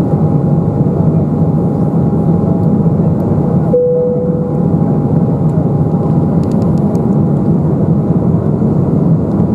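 Steady cabin noise of an Embraer 195 in flight: the hum of its turbofan engines and the airflow, with a faint steady whine running through. A single brief tone sounds about four seconds in.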